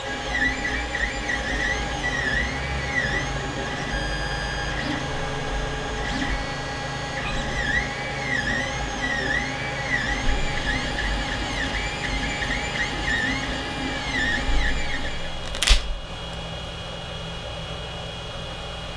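Creality Ender 5 Plus 3D printer printing: its stepper motors sing in quick rising and falling arcs of pitch as the print head moves, over a steady whir from its fans. A sharp click comes near the end, after which the motor song stops and only a steady hum is left.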